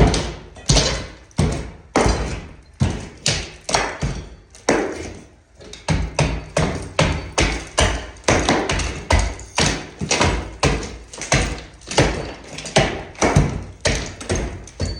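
Hammer blows breaking plaster and wooden lath off a wall, a steady run of sharp impacts about two to three a second, with a brief pause about five seconds in.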